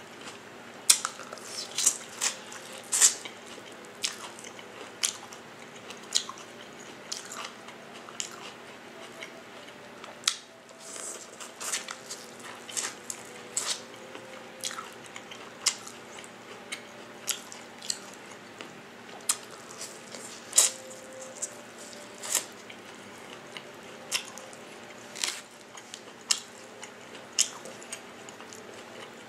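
Close-miked eating: sharp crunching bites with chewing in between, coming irregularly about once a second.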